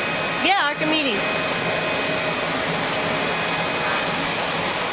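Steady whirring hum of a fan-type electric motor running without pause, with a brief voice sound about half a second in.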